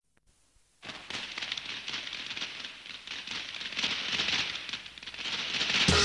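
A string of firecrackers going off: a dense crackle of pops that starts about a second in and grows louder, with music beginning just at the end.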